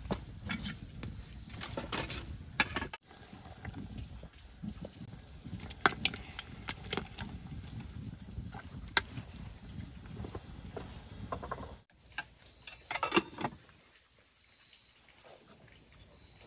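Scattered sharp knocks, taps and clicks over a low rumble. The sound cuts out abruptly twice, about three seconds in and near twelve seconds, and is quieter and sparser in the last few seconds.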